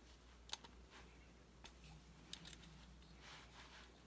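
A few faint, sharp metal clicks from an Allen key and the steel parts of an air rifle's action being handled, in near silence.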